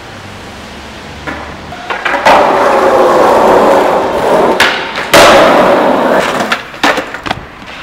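Skateboard wheels rolling loudly over rough pavement, starting about two seconds in, with sharp clacks of the board about halfway through and a few smaller knocks near the end.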